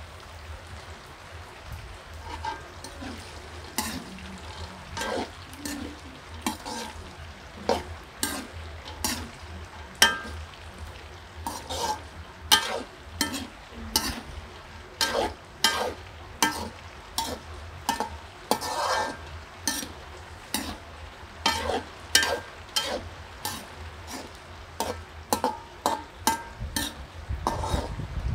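Raw peanuts and garlic cloves frying in oil in a metal wok, with a steady sizzle, while a metal slotted ladle stirs and scrapes through them. The scrapes are sparse at first and come one or two a second from about eight seconds in.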